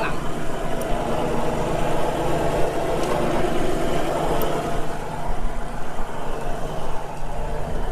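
A fishing boat's engine running steadily, a constant-pitch drone with no change in speed.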